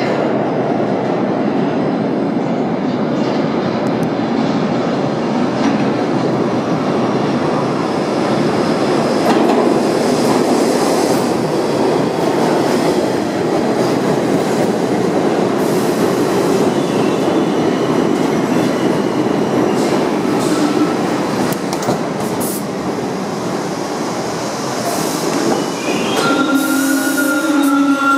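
R62A subway train pulling into the station along the platform: a steady rumble of wheels on rails that eases as it slows. Near the end it comes to a stand, and a steady hum with a few held tones takes over.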